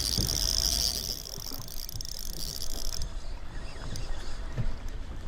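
Fishing boat's engine running with a steady low rumble, under a high hiss that cuts off suddenly about three seconds in, with a couple of dull knocks.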